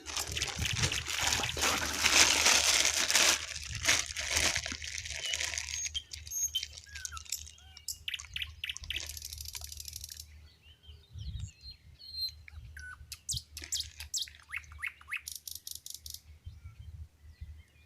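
Small birds chirping, with a loud stretch of rough, hissing noise for the first few seconds and later two runs of rapid, rhythmic scratchy sounds.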